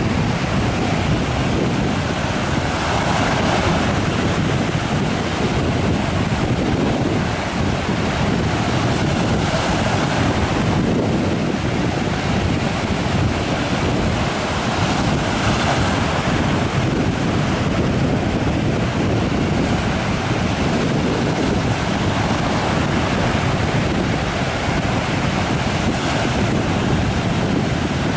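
Sea surf breaking and washing up the sand in a continuous rushing wash that swells and eases every few seconds, with wind buffeting the microphone.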